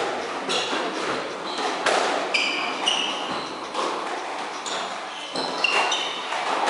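Squash rally: the ball cracking off rackets and the walls at irregular intervals, with short high-pitched squeaks of sneakers on the wooden court floor.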